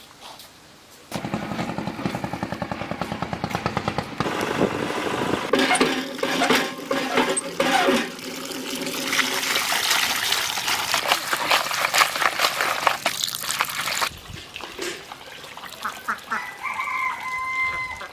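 Water gushing from a hand pump's spout into a bamboo basket of cut goat offal being washed, pulsing with the pumping and splashing over the pieces. It starts about a second in and cuts off abruptly about fourteen seconds in.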